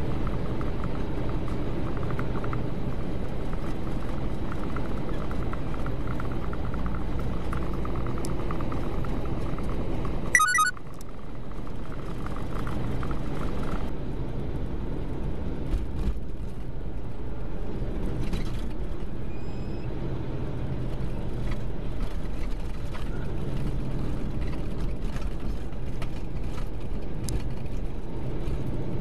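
Steady low rumble of a semi-truck's engine and tyres heard from inside the cab at highway speed. About a third of the way in there is a short burst, and the rumble then carries on a little quieter.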